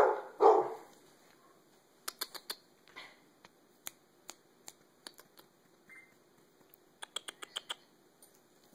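A small dog's booties clicking and tapping as she shifts her feet, in scattered light clicks: a short cluster about two seconds in, single taps through the middle, and a quick run of about eight clicks near the end. Two short, louder sounds come right at the start.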